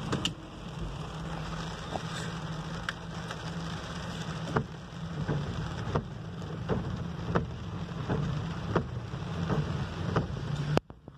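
Rain falling on a car's roof and windshield, heard from inside the cab, with scattered sharper ticks of single drops over the vehicle's steady low engine hum. The sound cuts off abruptly near the end.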